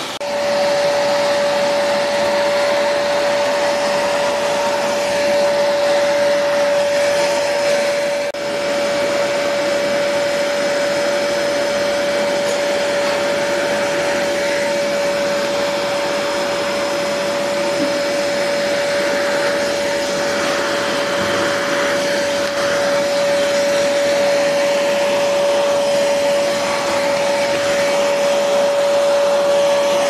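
AGARO Rapid 1000-watt wet and dry vacuum cleaner running steadily with a constant whine, sucking dust off a tiled floor through its floor nozzle. The sound dips briefly about eight seconds in.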